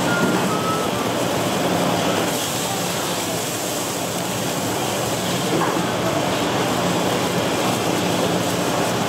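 Steady sizzle of fish cakes deep-frying in hot oil, with a low steady hum underneath.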